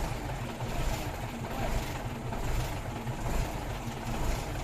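A vehicle engine running, with wind rushing over the microphone.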